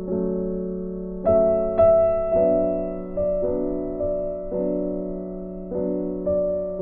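Background piano music: slow chords and single notes struck every half second to a second, each ringing on and fading.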